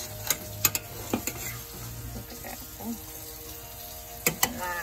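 Metal spoon stirring curried chunks in a stainless steel pan, clinking and scraping against the pan a few times in the first second and a half and twice near the end, over the low sizzle of the simmering sauce.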